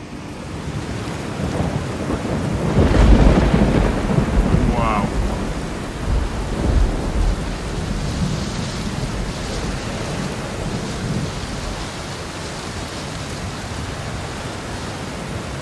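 Thunder rumbling over steady rain. The heaviest rolls come about three seconds in and again around six to seven seconds, then ease back to a steady rain hiss with softer distant rumbles.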